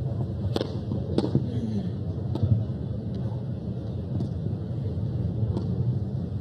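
Tennis ball struck by rackets in a rally on a grass court, starting from a serve: a string of sharp pops about once a second over a low steady background rumble.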